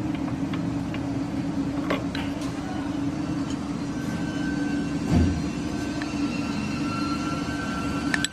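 Car running with a steady low hum, with scattered light knocks and one heavier clunk about five seconds in: the knocking noise of a worn steering rack end. A faint high whine joins from about four seconds in.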